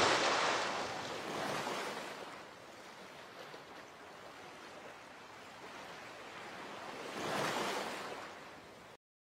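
Small waves washing up on a sandy shoreline, a soft surf hiss that swells about a second and a half in and again near the end, then cuts off abruptly.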